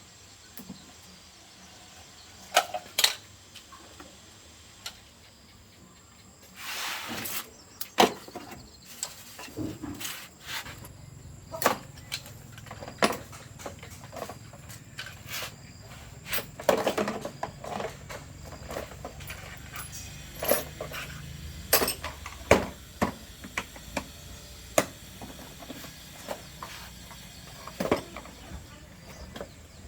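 Scattered clicks and knocks, with a short rustling burst about seven seconds in. A steady low hum comes in about ten seconds in, consistent with the freshly repaired speaker switched on and idling.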